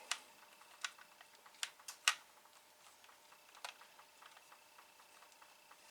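Scattered sharp clicks and light taps of a screwdriver and small screws working at the plastic housing of a desoldering iron. The loudest click comes about two seconds in, with another at the very end.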